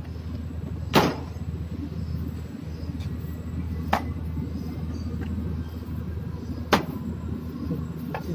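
Short cut lengths of heavy stranded power cable knocking down onto a steel worktable three times, the first about a second in and the loudest, over a steady low machine hum.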